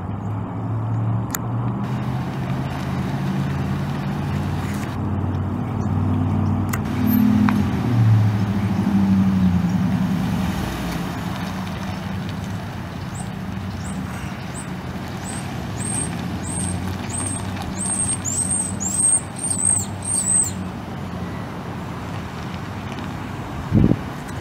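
Ford F-150's 5.0L V8 gasoline engine running, rising in pitch briefly about seven seconds in and then settling back to a steady run. A series of short, high chirps sounds over it in the second half.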